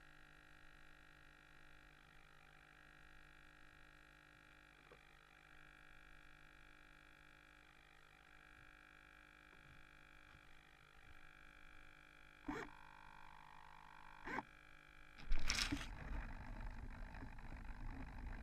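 Faint steady hum of several fixed tones, then two sharp knocks and, about fifteen seconds in, loud rustling and handling noise as the crashed foam plane carrying the camera is picked up from the grass.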